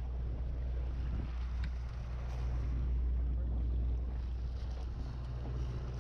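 Fishing boat's engine running with a steady low drone, under wind and water noise.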